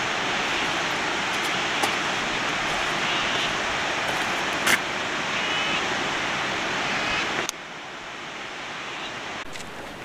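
Steady rushing of falling water from a waterfall and its cascades. About two-thirds of the way through it drops suddenly to a softer, even hiss.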